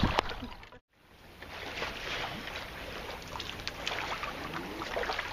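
Small waves lapping and sloshing against a kayak's hull, a steady wash of water with many small splashes, fading in after a brief silence about a second in.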